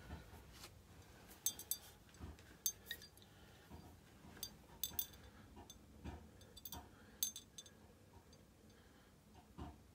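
Faint handling of a glass whisky bottle, a Johnnie Walker Blue Label: short, sharp glassy clinks, several in quick pairs, among soft low knocks as it is picked up and turned in the hand.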